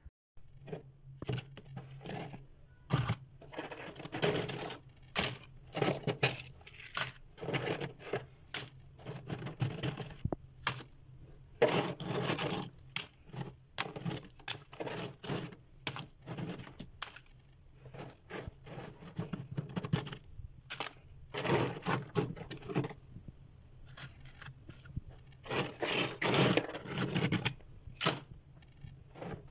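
Freezer frost and ice crunching: an irregular run of crisp crunches and crackles, coming in bursts every second or two.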